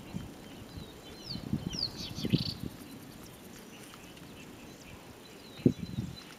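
Quiet open-air ambience with a few quick, falling bird chirps about two seconds in. Dull low bumps come and go through it, the loudest one near the end.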